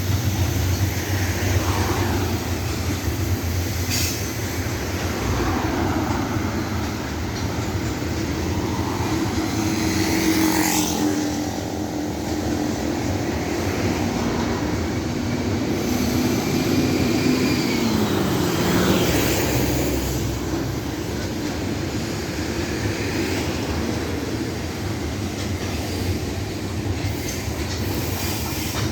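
Train rolling past with a steady rumble of wagons on the rails. Brief gliding squeals from the wheels come and go, around ten seconds in and again near twenty.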